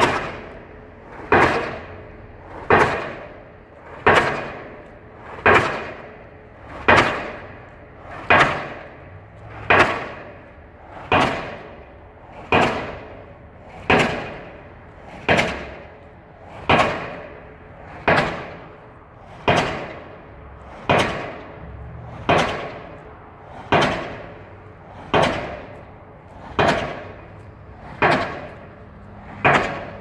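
Pile driver hammering a pile at a steady pace, about one blow every second and a half, each blow ringing out and dying away before the next.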